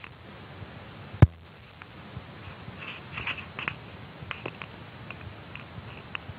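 Faint scattered ticks, taps and scuffles of a cat scampering and pouncing after a laser-pointer dot, with one sharp knock about a second in.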